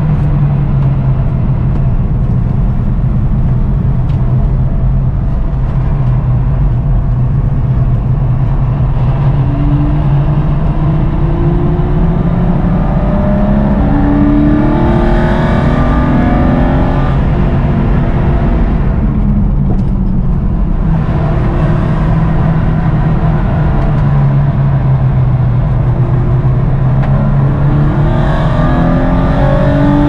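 Porsche 993 Cup's air-cooled flat-six engine heard from inside the cabin under hard acceleration, climbing in pitch through several rising pulls, easing off briefly about twenty seconds in, then pulling hard again near the end.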